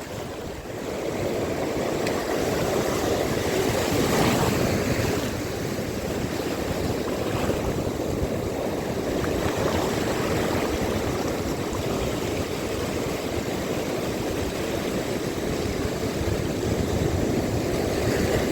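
Steady rushing of wind on the microphone and lapping water, swelling slightly about four seconds in.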